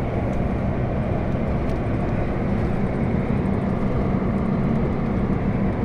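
Iveco EuroStar truck driving, heard inside the cab: a steady diesel engine drone with road and wind noise.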